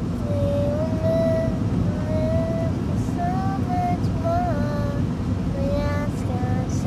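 A child singing a slow tune in long held notes that slide between pitches, over the steady low rumble of a car driving on the road, heard from inside the car.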